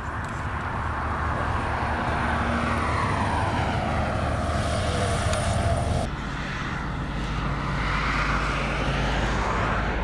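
Highway traffic going by: tyre and engine noise from passing lorries, swelling and fading as each passes. The sound shifts abruptly about six seconds in.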